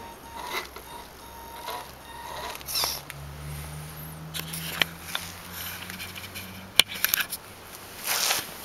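Axial AX-10 RC rock crawler working its way over concrete stones: a low motor hum under scattered scrapes and clicks of tyres and chassis on stone, with a sharp click about seven seconds in.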